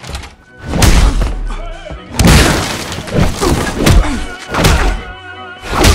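Heavy film sound-effect crashes and thuds as a wooden door is battered and forced open, about one blow a second, the first two the loudest, with dramatic action music underneath.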